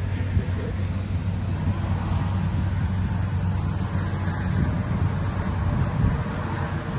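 Helicopter engine and rotor noise, a loud steady low drone that holds evenly throughout.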